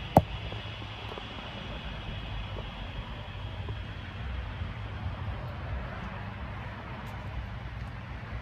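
Steady low rumble of background noise, with one sharp click just after the start.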